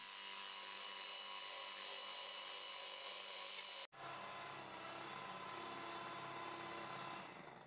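Electric hand mixer running steadily as its beaters whip eggs and sugar into a pale, foamy sponge-cake batter. It breaks off for an instant just under four seconds in, then runs on and fades away near the end.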